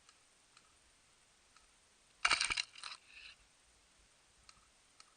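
A short, loud burst of airsoft gunfire, many rapid sharp clicks, about two seconds in, followed by a briefer, quieter burst just after.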